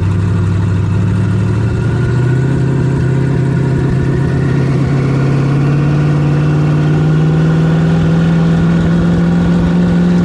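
The twin-turbo 427 Dart-block V8 of a 2,000-horsepower El Camino running under light throttle, heard from inside the cab. Its pitch steps up about a second and a half in, then climbs slowly and steadily as the car pulls along.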